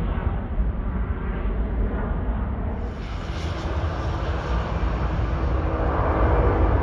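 Jet engines of a twin-engine airliner climbing out after takeoff: a steady low rumble that grows louder through the second half as the aircraft comes closer. About three seconds in, the recording changes abruptly where one departure clip gives way to the next.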